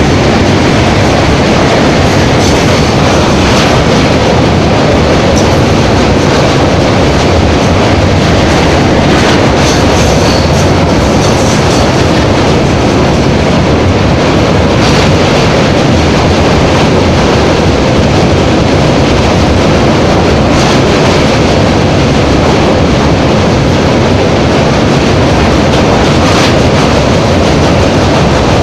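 Passenger train running over a steel truss bridge: a loud, steady rumble with the clatter of wheels on the rails.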